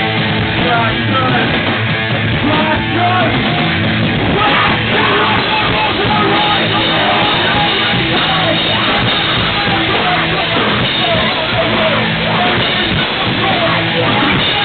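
Rock band playing a loud, punk-style song, with a singer singing and yelling over the instruments.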